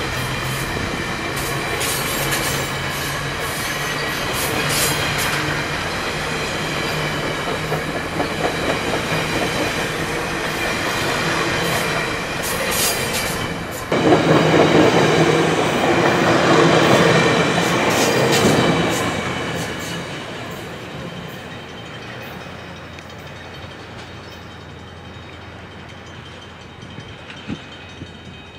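Stainless steel Budd passenger cars rolling past close by, wheels clicking over rail joints under steady high tones. About halfway through the sound jumps abruptly louder, then fades steadily as the end of the train draws away.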